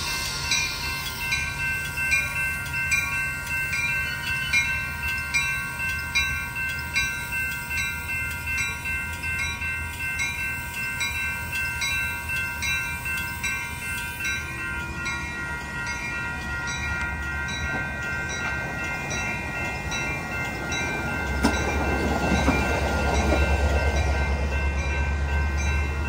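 Railroad grade-crossing warning bells ringing in a steady, evenly repeating chime. About three-quarters of the way in, the low rumble of an approaching train rises under the bells.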